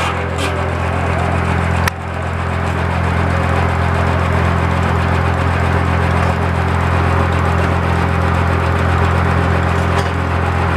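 The engine of a 1930s-style sawmill runs steadily with a low, even hum. About two seconds in there is a sharp click, and the sound drops briefly and then builds back up.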